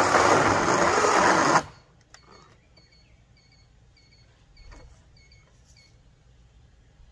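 Greenworks 80V cordless electric chainsaw running at full speed through oak slab wood, then cutting off abruptly about a second and a half in. After it stops, faint high double chirps repeat about once a second.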